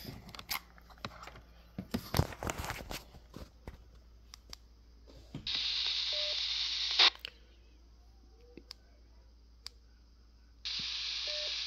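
A Quansheng UV-K5 handheld radio being handled, with a few clicks and knocks, then twice a burst of static hiss from its speaker, each about a second and a half long with a short tone in it, cut off by a click.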